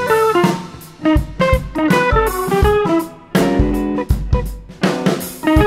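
Background music: plucked guitar melody over a drum kit and bass, with a steady beat.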